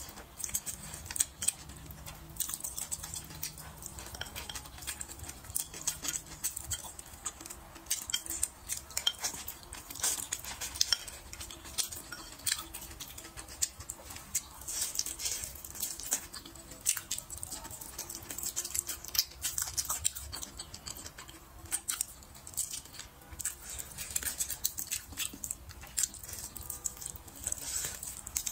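Close-miked eating: wet chewing and lip smacks over a piece of braised meat, with many irregular sharp clicks and the occasional clack of wooden chopsticks against a ceramic bowl.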